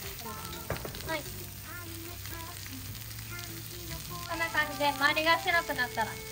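Lamb slices and onions sizzling on a hot domed cast-iron jingisukan grill while metal tongs turn the meat. Background voices rise above the sizzle from about four seconds in.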